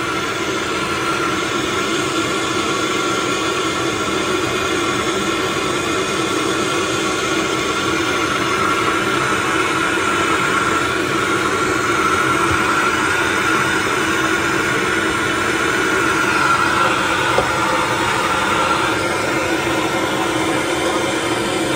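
Handheld gas torch burning steadily against copper pipe, heating it to sweat-solder a fitting. A steady tone in the flame noise drops away near the end.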